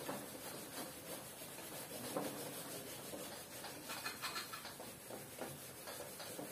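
A white cloth wiping a whiteboard clean, rubbing across the board in short, irregular strokes.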